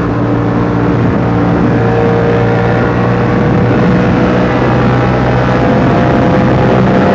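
Yamaha R7's 689 cc parallel-twin engine through a KO Lightning aftermarket exhaust, running steadily at cruising revs, the pitch creeping up slightly over the last few seconds.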